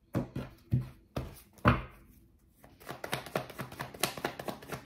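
A deck of tarot cards handled on a desk: a few sharp taps as stacks of cards are cut and set down, then from about three seconds in a rapid run of small clicks as the deck is shuffled.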